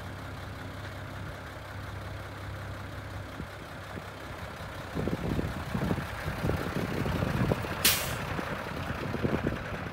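Mitsubishi Fuso Fighter's 6D17 six-cylinder diesel idling with a steady low hum. From about halfway, low irregular buffeting of wind on the microphone joins it. Near the end there is a brief sharp hiss of released air.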